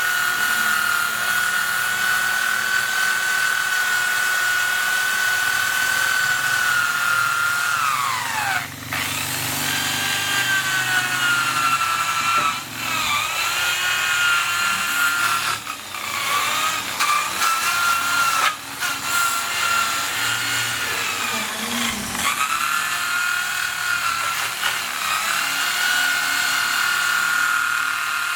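Handheld electric power tool working wood, a steady high whine that sags in pitch several times as it is pressed into the board and recovers, with a few brief breaks.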